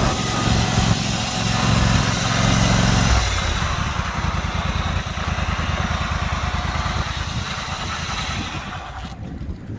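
The engine of a John Deere F725 front-mount riding mower running. About three seconds in it drops from a strong, even hum to a slower, pulsing idle, which grows fainter near the end.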